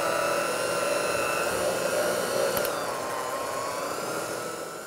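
Electric hand mixer running with its beaters in a thick, sticky dough: a steady motor whine that dips in pitch about three seconds in and recovers. It fades out right at the end.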